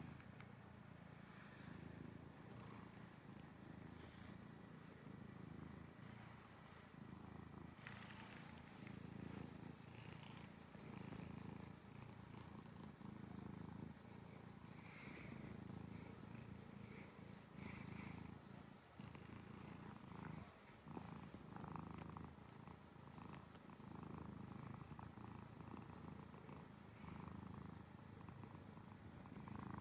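Domestic cat purring quietly and steadily, a low rhythmic purr, while it is being petted.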